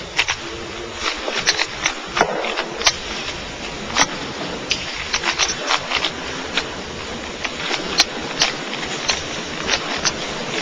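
Rubik's Cube being turned rapidly during a timed speed solve: quick, irregular plastic clicks and clacks over a steady background hiss.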